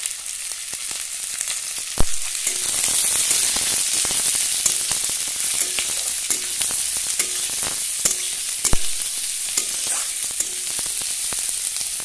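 Sliced onions sizzling steadily as they fry in hot mustard oil in a kadai, stirred with a spatula that scrapes and clicks against the pan. There are two sharper knocks of the spatula on the pan, about two seconds in and near nine seconds.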